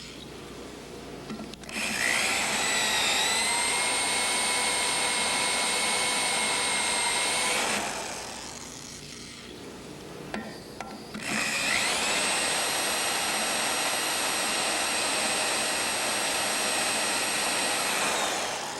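Electric drill running in reverse, cutting into a rusted broken bolt with a Drill Out extractor bit: two runs of several seconds each, a steady whine with cutting noise that rises briefly as the drill spins up, separated by a pause of a few seconds.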